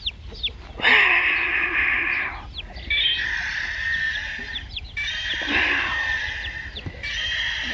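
Battery-powered toy dinosaurs playing electronic roar sounds through small built-in speakers. Several roars of about two seconds each start and stop abruptly.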